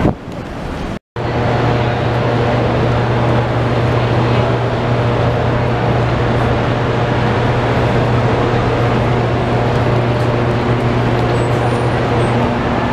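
City street traffic: a vehicle engine's steady low drone over road noise, after a brief dropout about a second in.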